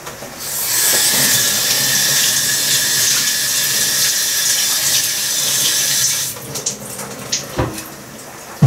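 Kitchen tap running into the sink for about six seconds, a steady hiss of water with a faint steady whistle under it, then shut off abruptly, followed by a few small knocks.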